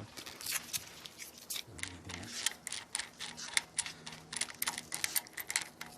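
Ratchet and 8 mm Allen socket clicking rapidly and unevenly as a cam gear bolt is turned out, with small metallic clicks and taps of tool and bolt.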